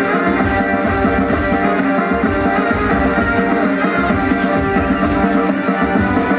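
A live band playing loud amplified music over a stage sound system, with a steady beat about two times a second.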